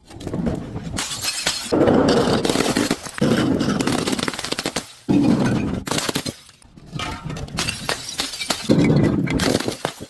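Glass bottle being crushed: dense crunching and cracking of breaking glass, coming in several bouts with brief pauses between.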